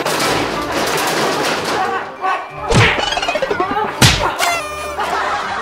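Fight blows from a bamboo pole, a dense clatter of hits and then two heavy whacks about three and four seconds in, the second the loudest, over background music.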